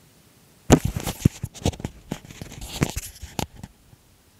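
Handling noise on the recording device's microphone: a burst of irregular knocks, scrapes and rustles as the camera is picked up and moved. It starts under a second in, is loudest at first, and dies away after about three seconds.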